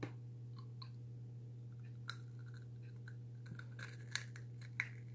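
Faint crunching and chewing of a crisp cookie being bitten and eaten, with a few sharp crunches in the second half.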